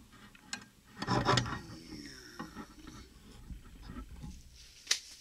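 A transmission mainshaft assembly with its gears and synchronizers being set down and handled on a workbench. There is a loud metal clunk with brief ringing about a second in, then light rubbing and scraping, and a sharp click near the end.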